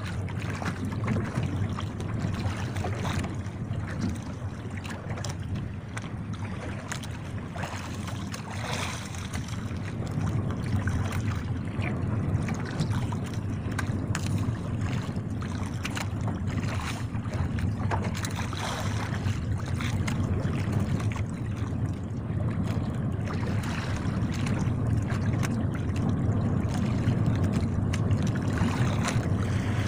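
Steady wind and sea noise on a small outrigger fishing boat, with scattered clicks and knocks as a handline is hauled in and fish are unhooked.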